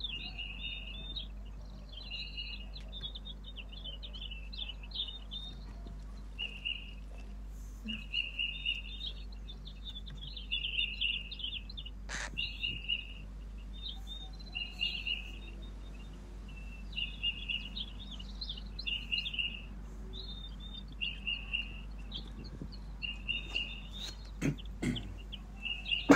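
Eurasian jay fledgling calling over and over: short, high, scratchy calls in groups a second or two long with brief pauses between, begging to be fed by hand. A single sharp click about halfway through and a couple of knocks near the end.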